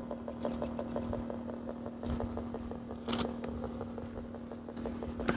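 Spirit box scanning radio sweeping through stations: a rapid, even ticking of static over a steady electronic hum, with two short hissy bursts about two and three seconds in.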